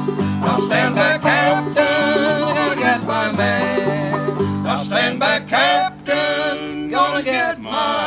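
Old-time string band playing an instrumental passage: bowed fiddle carrying a sliding melody over a strummed acoustic guitar and a picked banjo.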